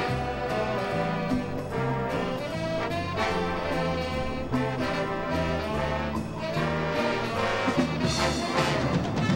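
Marching band playing a jazz-styled chart: brass section holding sustained chords over a moving bass line, with a drum kit keeping time and saxophones in the band.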